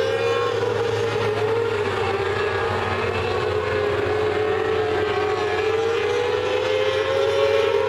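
A field of mini sprint cars racing on a dirt oval, their engines running together in a steady, high-pitched drone that rises and falls gently as the cars circle the track.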